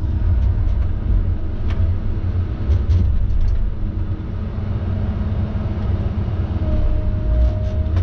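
Heavy logging machine's engine running steadily with a deep rumble, a faint steady whine joining it about five seconds in.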